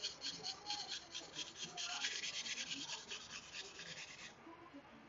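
Santoku blade scraped back and forth on a whetstone in quick strokes, about five a second, growing denser about two seconds in and stopping abruptly a little over four seconds in. It is the grinding of the knife's stepped edge into a smooth convex clamshell (hamaguri) edge.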